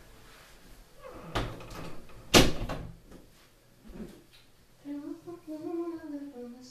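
Two knocks about a second apart, the second louder, like a door being shut. A voice follows near the end.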